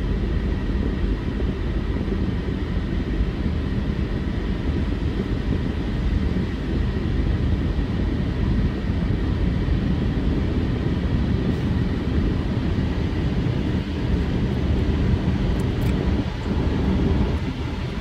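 Automatic car wash gantry's drying blowers running steadily over the car, a loud even rush of air heard through the car body from inside the cabin.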